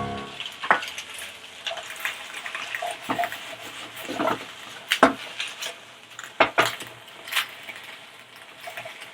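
Metal spatula knocking and scraping in a wok during stir-frying, scattered clicks about once a second over a low sizzle, as sliced fish rolls are tossed with garlic chive flowers.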